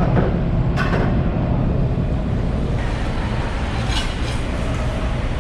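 Steady low rumble of fish market background noise, with a few short sharp clicks: one about a second in and two close together near four seconds.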